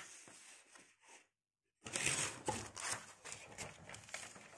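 Sheets of paper rustling and crinkling as they are handled, in irregular rustles, with a brief silent gap about a second and a half in and the loudest rustling just after it.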